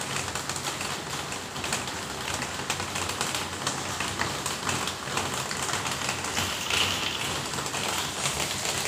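Steady rain, with many drops pattering and tapping close by.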